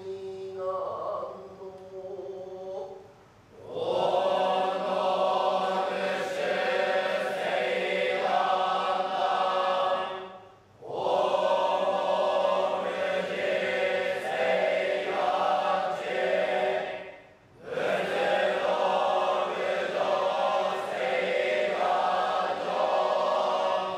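Nichiren Buddhist monks chanting together in long phrases of about six to seven seconds each, with a short pause for breath between phrases. The chanting is quieter for the first few seconds and fills out at about four seconds in.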